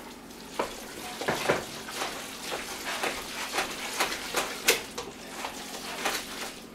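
A spoon stirring thick bison chili in a stainless steel pot, with irregular scrapes and knocks against the pot about twice a second, over a steady sizzle from the hot pot.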